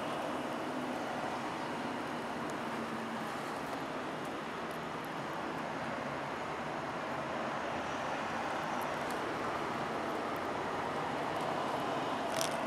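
Steady hiss of rain and traffic noise on a wet highway, even throughout with no distinct single event.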